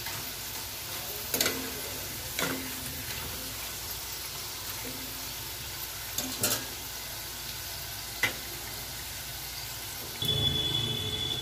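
Potato fingers deep-frying in hot refined oil in an aluminium pan: a steady sizzle, with a few sharp clinks of a metal spoon against the pan as they are stirred. The fries are already golden brown and are being fried further to crisp up; the sound grows louder near the end.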